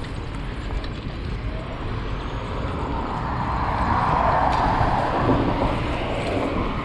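A motor vehicle passing close by: its tyre and engine noise swells to a peak about four seconds in and then fades. Under it is a low wind rumble on a chest-mounted action-camera microphone on a moving bicycle.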